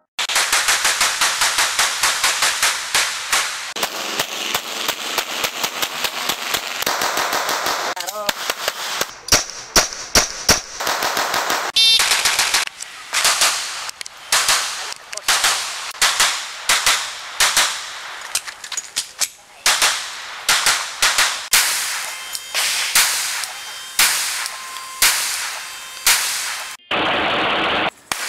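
Glock pistols firing fast: for about the first twelve seconds the shots run almost together in long rapid strings, then come as separate sharp shots in quick clusters of several at a time.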